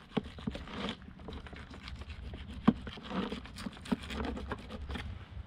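Fillet knife cutting along the back of a scaled sheepshead on a plastic cutting board: irregular crackling and scraping ticks as the blade works through the scales and skin, with one sharper click about halfway through.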